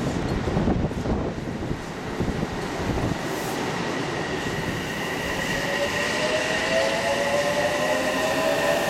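Odakyu 3000 series electric train moving off. Its wheels rumble low at first, then from about halfway a whine from the traction motors rises slowly in pitch as the train picks up speed.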